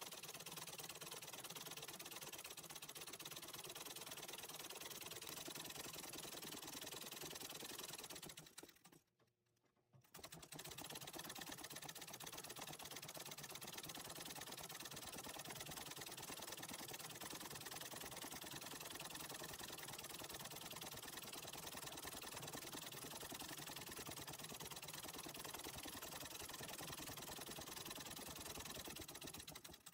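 Antique treadle sewing machine stitching fast, a steady rapid run of needle strokes as it embroiders. It stops briefly about a third of the way through, then starts up again.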